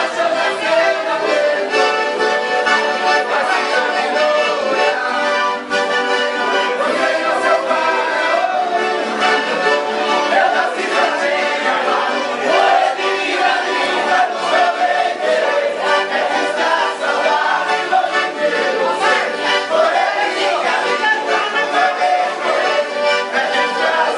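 Accordion (sanfona) playing dance music continuously.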